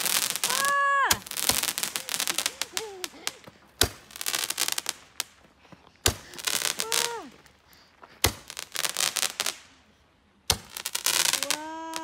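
Fireworks going off: a sharp bang every two to three seconds, each followed by a burst of dense crackling. Short voice exclamations sound between the bursts.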